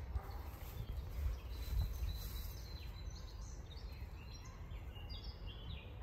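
Wild birds singing in runs of short high notes, over a low rumble of wind on the microphone that gusts loudest in the first two seconds.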